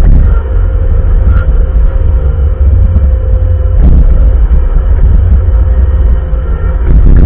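Bobcat wheel loader's diesel engine running steadily under load while plowing snow: a heavy low rumble with a steady whine over it, and a couple of clunks, one about four seconds in and one near the end.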